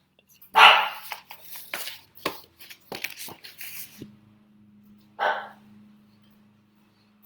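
Pet dogs barking: a loud first bark about half a second in, a run of barks over the next few seconds, then one more bark about five seconds in.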